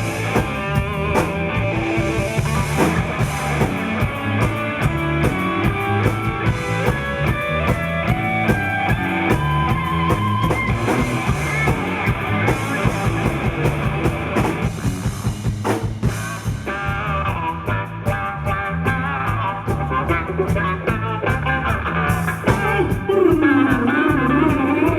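Live rock band playing, led by drum kit and guitar, with a line climbing steadily in pitch a little over a third of the way in.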